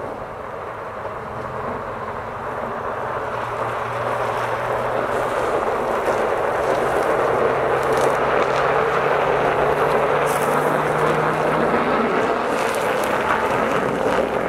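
Car tyres rolling over hard-packed ice and snow in deep cold, a noisy squealing crunch that swells over the first few seconds and stays loud. The cold-stiffened rubber is what makes the tyres cry, with the car's engine humming low and steady underneath.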